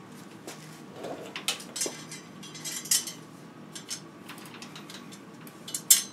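Scattered metallic clinks and clicks as a bicycle's drive-side crank arm, with its chainring and chain, is handled and fitted onto the bottom bracket. The sharpest clink comes near the end.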